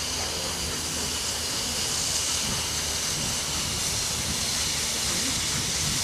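Steam locomotive letting off steam: a steady hiss with a low hum underneath.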